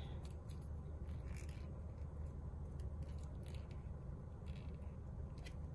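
Faint scratchy clicks and crackles as a nearly empty plastic glue tube is squeezed out, over a low steady hum.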